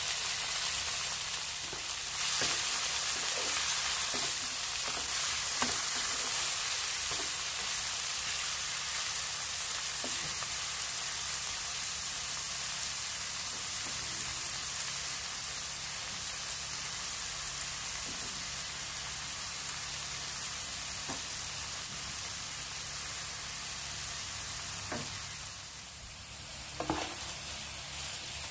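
Food sizzling steadily in hot oil in a pan, with occasional light clicks of a utensil stirring it. The sizzle eases near the end, followed by a few sharper knocks.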